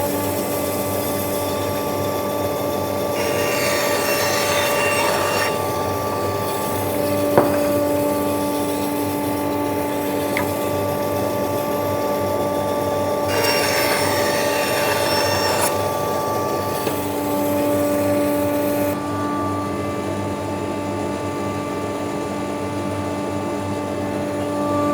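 Metabo BAS 261 band saw running steadily on its induction motor, its blade cutting through wood twice for a couple of seconds each, about three and about thirteen seconds in. A single sharp click about seven seconds in.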